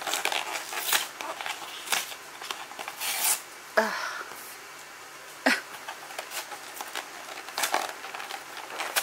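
Paper wrapping being torn and crinkled off a cardboard box by hand: irregular rustling and ripping, with two sharper, louder tears or snaps around four and five and a half seconds in.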